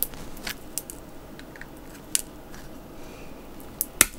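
Side cutters crunching and snapping a small clear plastic part apart: several sharp cracks and clicks at irregular intervals.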